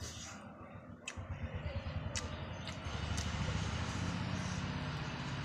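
A low, steady engine rumble comes in about a second in and grows louder, then holds, with a few light clicks of a metal spoon in the dip bowl.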